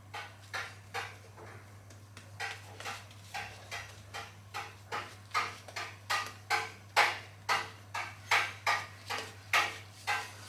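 Badger shaving brush swished back and forth through shaving lather, re-lathering for the final pass: short brushing strokes, about two to three a second, with a brief pause near the start, growing louder toward the end.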